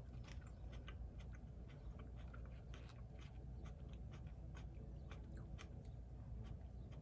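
A person chewing food close to the microphone, with many small, irregular wet mouth clicks over a faint steady low hum.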